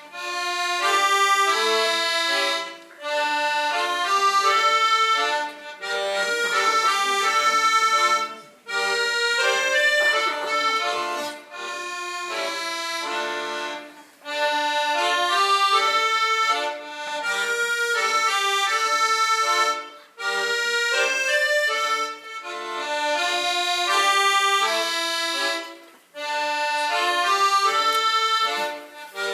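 Solo accordion playing a melody in phrases of about three seconds, each ending in a brief break before the next begins.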